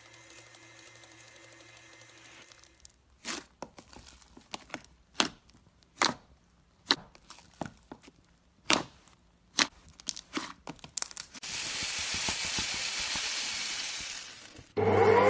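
Slime being beaten, giving a run of sharp, irregular pops and crackles, followed near the end by about three seconds of steady rushing noise.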